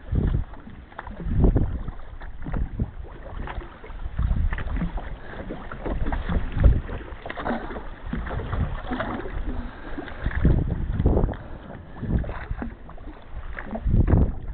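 Wind buffeting the microphone in irregular gusts every second or two, with water slapping against the hull of a small drifting boat. No engine is running.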